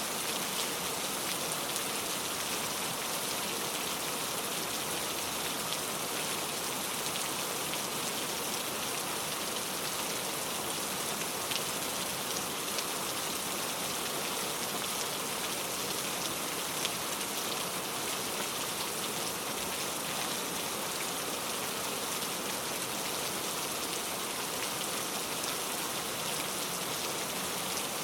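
Steady rain falling on a surface, an even hiss with many fine drop ticks and no thunder.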